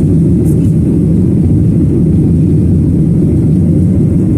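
Steady low rumble of an airliner cabin during the climb after takeoff: engine and airflow noise heard from inside the plane.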